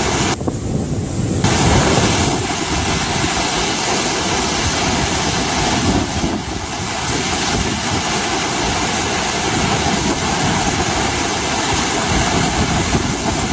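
Hurricane winds blowing as a steady, loud rush of noise, buffeting the microphone.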